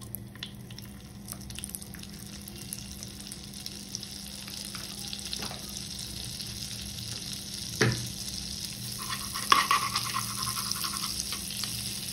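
Hot oil sizzling in a kadai, the sizzle slowly growing louder, with two sharp knocks of a cooking utensil against the pan near the end.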